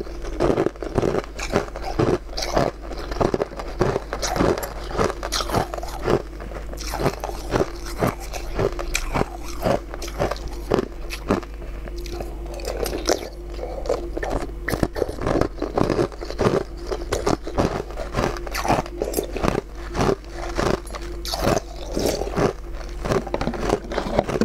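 Close-miked mouth sounds of eating spoonfuls of a broth-like dish: chewing, sipping and wet smacking as a dense, continuous run of small clicks.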